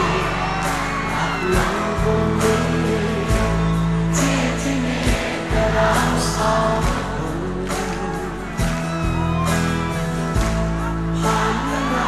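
Thai pop love song sung over band accompaniment, the vocal melody carried over a bass line that moves in held notes.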